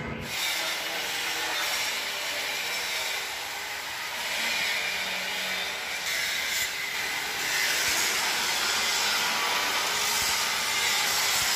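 Angle grinder cutting into a steel truck chassis frame rail: a continuous hissing grind that gets louder in the last few seconds.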